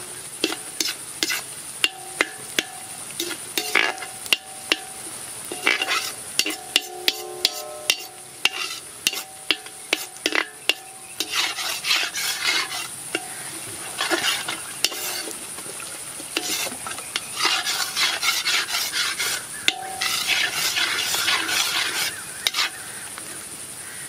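Steel ladle stirring and scraping chopped onions in an iron kadai, clanking repeatedly against the pan, while the onions sizzle in hot oil.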